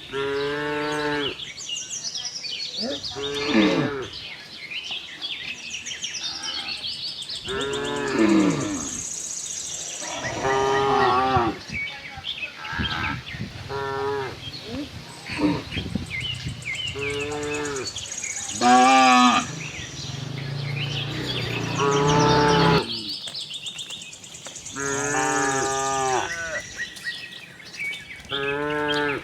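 Cows in a herd mooing, about ten calls one after another, each a second or so long, several sliding down in pitch as they end.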